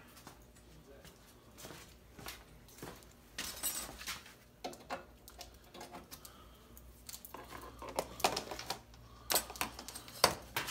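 Small metal parts and a hand tool being set down and handled on a workbench: scattered clinks and knocks, more frequent and louder over the last few seconds.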